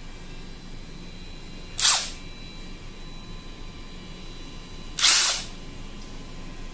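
Cordless power tool triggered twice in short blips, about two and five seconds in; each time the motor spins up for under half a second and winds down.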